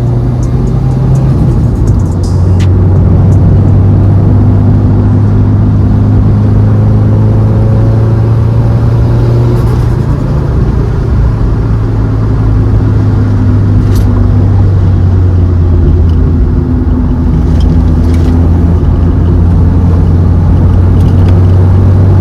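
Turbocharged Subaru WRX flat-four engine running at a steady cruise with a low drone, heard inside the cabin over road rumble, its pitch shifting slightly a couple of times as the throttle changes.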